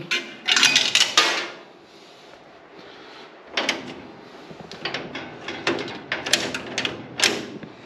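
Metal clicks and clatter from a vintage Stoner Univendor candy machine's coin mechanism as it is worked by hand and the coin release is flipped down. A burst of clattering comes in the first second and a half, then a run of separate sharp clicks starts about halfway through and goes on until near the end.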